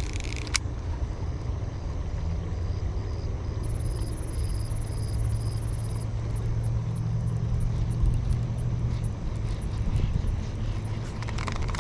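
A low, steady hum and rumble that grows louder through the middle and then eases. A faint, high pulsing chirp, a few pulses a second, runs through the first half.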